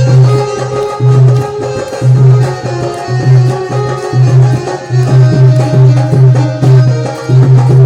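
Music with a steady, repeating hand-drum beat under a sustained melody line.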